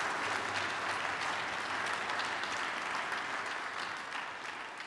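Concert audience applauding, a steady patter of many hands clapping that begins to die away near the end.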